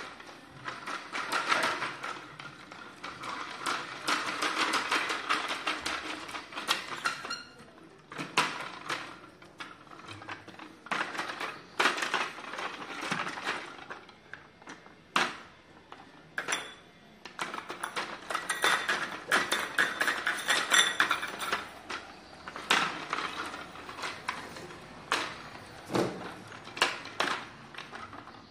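Mechanical plastic toy dog walking on a stone floor: a rapid clatter of plastic clicks for several seconds, again about two-thirds of the way in, with single sharp knocks in between.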